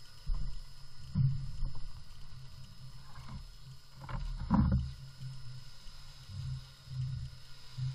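Water lapping and slapping against a floating pontoon, an uneven low rumble with a few louder slaps, the loudest about four and a half seconds in.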